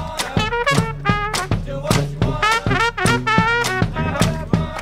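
New Orleans-style brass band playing an upbeat groove: trumpet and trombone phrases over a sousaphone bass line, with bass drum hits keeping a steady beat.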